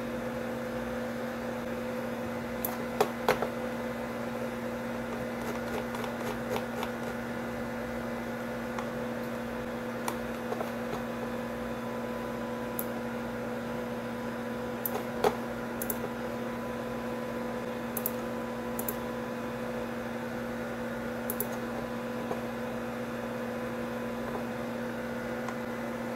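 Steady electrical hum with scattered sharp clicks from a computer mouse, a few close together about three seconds in and again around fifteen seconds.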